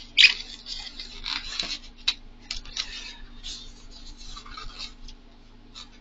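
Polystyrene foam shipping box being picked at and pried apart by hand, with irregular scratchy crunching and squeaking of the foam. The loudest scrape comes just after the start, and the sounds die away about a second before the end.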